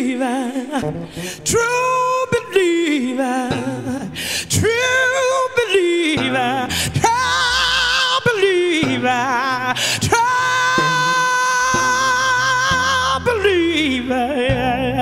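A woman's gospel voice singing long, drawn-out phrases with held notes and a wide vibrato, the longest note held for about three seconds in the second half.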